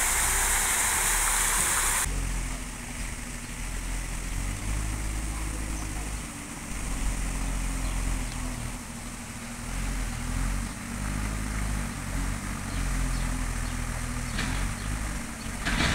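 Rushing water from an artificial waterfall hisses for about two seconds, then cuts off suddenly to a low steady rumble with a faint wavering hum.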